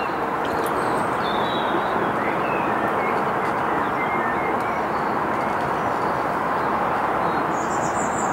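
Steady rushing outdoor background noise, with small birds chirping now and then.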